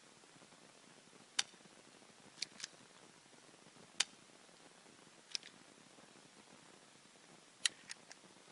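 Airsoft Glock 17 pistol firing: about eight sharp, light snaps at irregular intervals, some single and some in quick pairs and a burst of three near the end, over a faint hiss.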